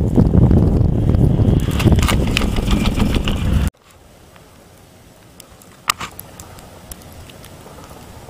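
Wind buffeting the microphone on a moving chairlift: a loud, low rumble with a few clicks that cuts off abruptly about four seconds in. After the cut there is only a faint hiss, with one sharp click about six seconds in.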